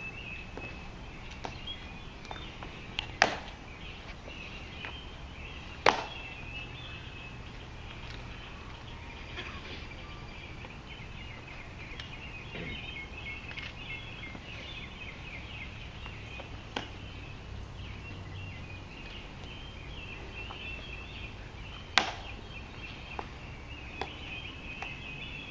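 Three sharp, loud clicks spaced several seconds apart from the ceremonial guard soldiers' drill movements, with fainter taps between them. Steady bird chirping runs underneath.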